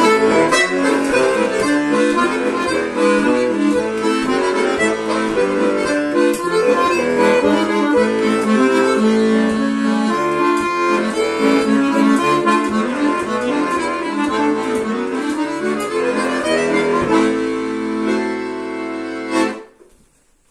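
Tula button accordion (bayan) playing a quick folk tune with fast-changing notes over a bass accompaniment, settling onto a held chord and ending on a short final chord about a second before the end, after which it stops.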